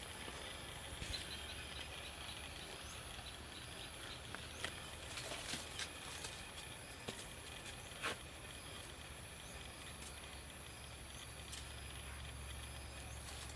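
Quiet outdoor ambience with a low hum and a steady high-pitched whine, broken by a few light clicks and knocks of small sticks being handled, the loudest about eight seconds in.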